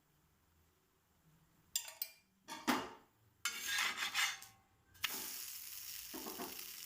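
Metal utensil clinks and scrapes against a cast-iron dosa griddle. About five seconds in, a steady sizzle starts as batter and oil fry on the hot griddle.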